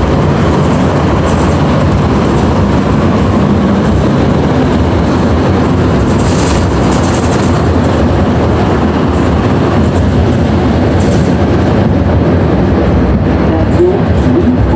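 Rubber-tyred Montreal metro train running through the tunnel, heard from inside the car: a loud, steady rumble, with a short hiss about six seconds in.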